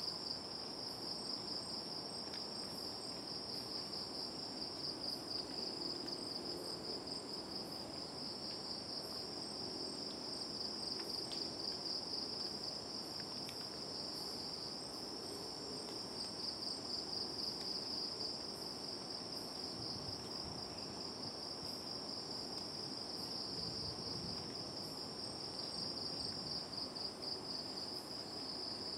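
Chorus of night insects trilling continuously, a fast high pulsing, with a second, higher chirp repeated in short runs of three to five.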